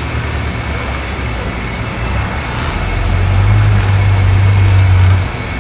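1954 Ford F100's original inline-six engine idling with a steady low rumble. It grows louder about three seconds in and drops back suddenly near the end.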